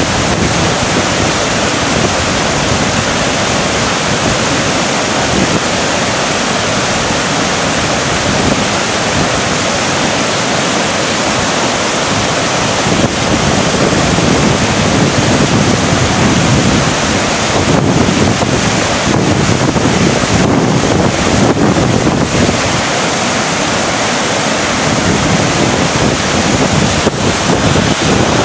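Rapids of the Yellowstone River rushing steadily, a loud even whitewater noise with no break, a little louder from about 13 seconds in.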